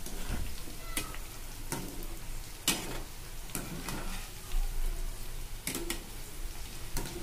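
Coated chickpeas deep-frying in hot oil in a kadhai, a steady sizzle. A wire spider strainer stirs through them, clinking and scraping against the pan several times.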